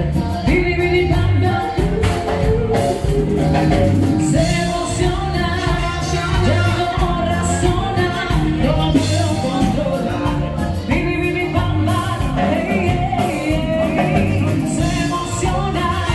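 Upbeat song with a steady beat and singing.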